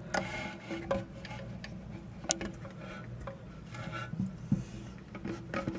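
Scattered light clicks and taps of plastic parts being handled as the refill hose is fitted onto the nipple of a new toilet fill valve, over a faint steady hum.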